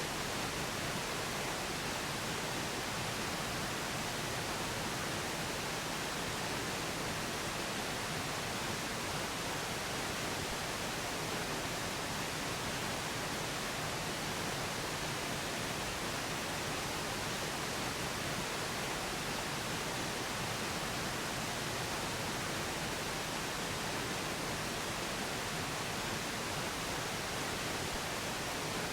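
Steady pink noise: an even, unchanging hiss, masking a subliminal affirmation track.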